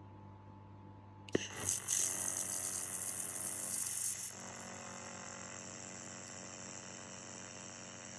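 2000 W handheld laser welding machine: a click about a second in, then a loud hiss for about three seconds that stops suddenly, leaving a steady machine hum.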